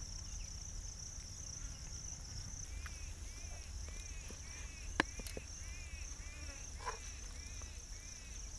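Steady high-pitched insect drone, with a bird repeating a short chirping call about twice a second from roughly three seconds in. A single sharp click about five seconds in.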